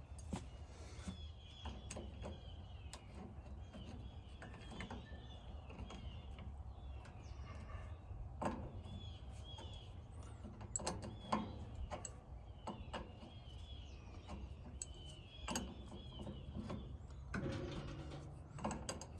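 Scattered clicks and knocks of hand tools and metal parts being handled on a small tractor, over a steady low hum, with birds chirping faintly in the background.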